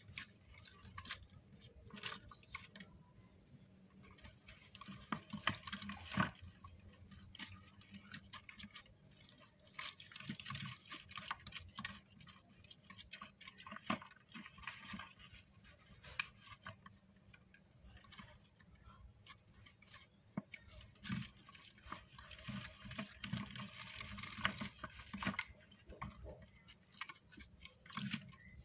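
Syrian hamsters scrabbling about a clear plastic tub and rustling through wood-shaving bedding: faint, irregular scratches and small clicks coming in loose clusters.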